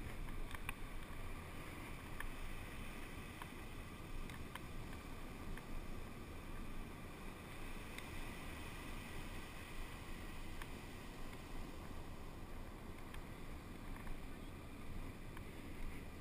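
Faint, steady wash of ocean surf breaking on the beach, with low wind rumble on the microphone and a few faint ticks.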